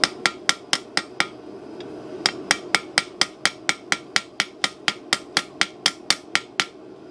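Ball-peen hammer striking red-hot steel on an anvil in a quick, even run of blows, about five a second, smoothing the surface of a hand-forged bottle opener. A few blows come first, then a pause of about a second, then a longer run that stops shortly before the end.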